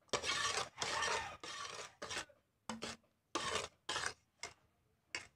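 A metal spoon stirring and scraping against the inside of a pot of coconut milk, sugar and cocoa, mixing the cocoa in until no lumps remain. Irregular scraping strokes, long and close together at first, then shorter and sparser toward the end.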